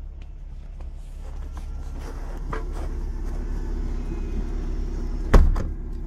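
Lada Niva's engine running steadily, with a hard bang about five seconds in: the rear tailgate being shut.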